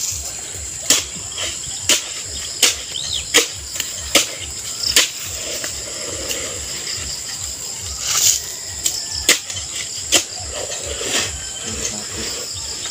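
A hand digging tool chopping into packed earth in a pit. Sharp strikes come about once a second through the first five seconds and again around eight to ten seconds in, over a steady high trill of crickets.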